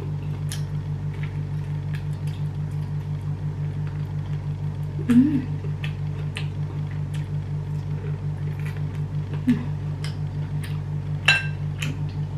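Close-up eating sounds: chewing with scattered small clicks as fingers work rice on a ceramic plate, and one ringing clink of the plate near the end, over a steady low hum.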